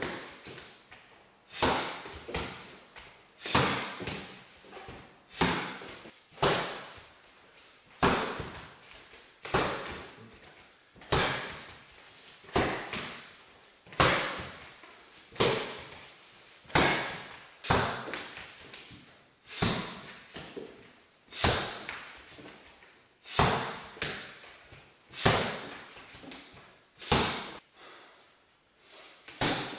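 Palm and fist strikes landing on a handheld striking pad: sharp slapping thuds, about one every second or two, sometimes two in quick succession, each with a short echo.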